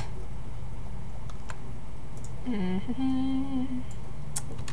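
A person humming briefly about halfway through: a low hummed note that dips, then rises and is held for about a second.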